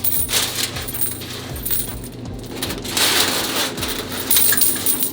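Loose coins jingling and clinking as they are handled, with repeated metallic rattles, over a steady low hum.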